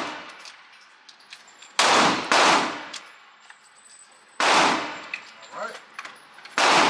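Four pistol shots, each ringing out in a long echo in an indoor range. Two come about half a second apart at around two seconds in, a third a couple of seconds later, and a fourth near the end.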